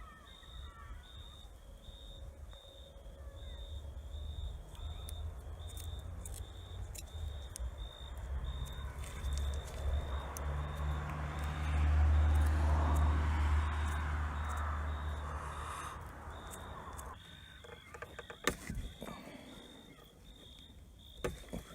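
A low vehicle engine rumble swells to its loudest about halfway through, then fades away. A high chirp repeats about twice a second throughout, and a few sharp metallic clicks come near the end.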